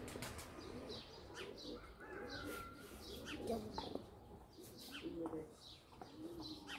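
Pigeons cooing in low calls that repeat every second or two, with small birds chirping high and briefly around them.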